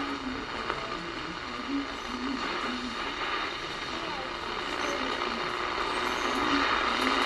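Small speaker of a GE 7-4657A Softlite clock radio giving FM static with brief snatches of broadcast voices as the dial is tuned down the band. The hiss grows louder near the end.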